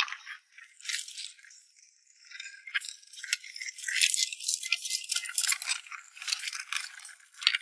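Live crabs clicking and rattling as their shells and legs scrape against one another and the bucket while a hand rummages through the catch; a dense crisp clatter that eases off for a moment about two seconds in, then picks up again.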